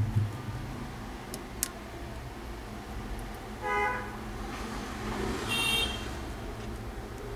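Two short vehicle horn toots, about two seconds apart, the second higher-pitched, over a steady low background hum; two light clicks come in the first two seconds.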